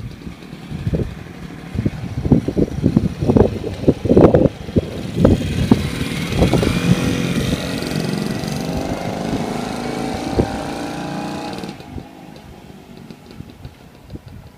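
Yamaha YA-1's 125 cc single-cylinder two-stroke engine accelerating away through the gears, its note rising in pitch from about halfway through, then dropping away sharply near the end. Irregular low thumps come first.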